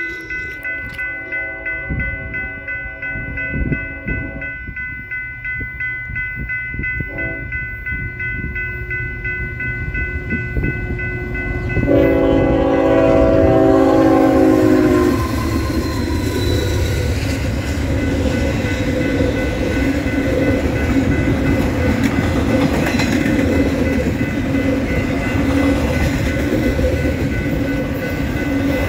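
Union Pacific GE freight locomotives (an ET44AC leading) sound their multi-chime horn in several blasts while approaching, the last and loudest blast about twelve seconds in as the locomotives pass, its pitch dropping slightly. After that the diesel engines and a double-stack container train roll past with steady rumbling and clickety-clack of wheels over the rail joints.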